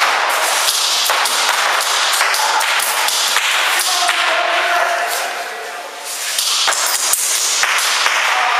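Airsoft guns firing in bursts, a rapid irregular string of sharp clicks and cracks, with BBs knocking against hard surfaces.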